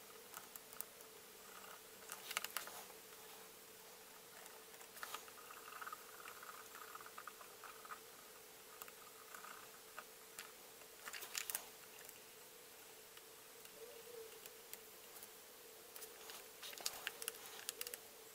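Faint small clicks and scratches of a fine-tipped paint pen dabbing on the hard plastic of an action figure, with fingers handling the figure, over a faint steady hum. The clicks come scattered through it, in a few short clusters.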